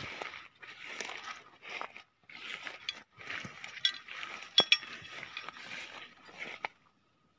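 Walking through tall grass and weeds: leaves and stems rustle in short bursts with each stride, with a few sharp clicks and clinks among them. It cuts off suddenly near the end.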